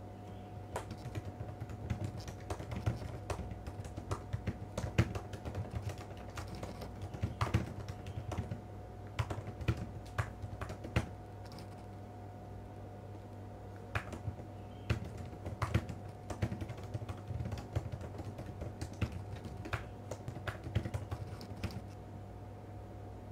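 Typing on a computer keyboard: irregular runs of key clicks, with a pause of about two seconds midway, over a steady low hum.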